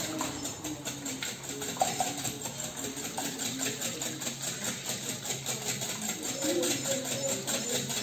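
Wire whisk beating a thin egg, milk and oil batter in a bowl: a quick, even rhythm of strokes, with background music underneath.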